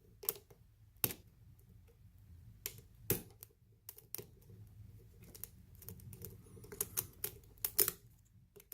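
Small metal clicks and ticks of a lock pick and tension wrench working the pins of a padlock during single-pin picking, with the lock held in a false set by deep spool pins. The clicks come irregularly, with a quicker cluster near the end.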